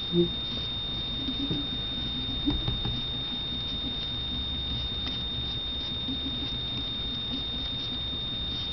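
Paint being applied to a glass jar: faint scratchy strokes and light taps, mostly in the first few seconds. A steady high-pitched whine runs underneath, and a short low blip comes right at the start.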